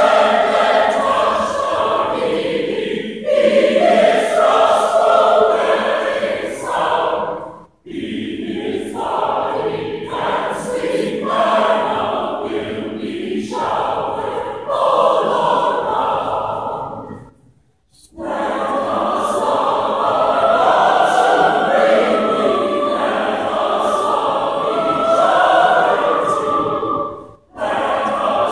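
Mixed church choir singing in phrases, breaking off briefly three times, at the end of each phrase.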